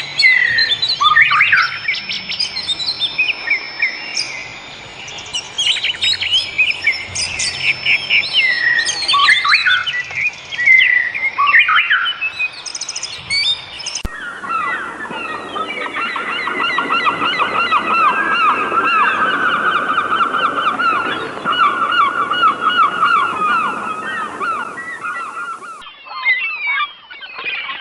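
Wild birds chirping and singing with varied, sliding calls; about halfway through the sound cuts abruptly to a flock giving dense, rapidly repeated calls, which changes again near the end.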